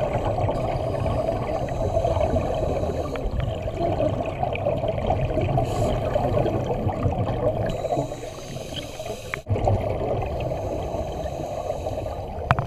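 Scuba diver breathing through a regulator underwater: a steady gurgle of exhaled bubbles, muffled as heard underwater, with a short break a little after nine seconds.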